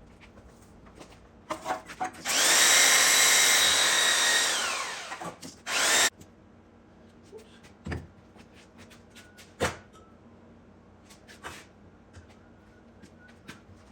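Electric power sander runs for about three seconds, then spins down with a falling whine; a brief second burst of the motor follows, then a few light knocks.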